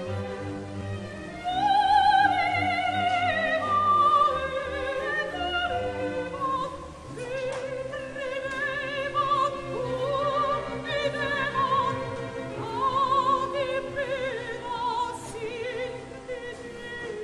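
Background music: a classical singer with strong vibrato, holding long sung notes over an orchestral accompaniment.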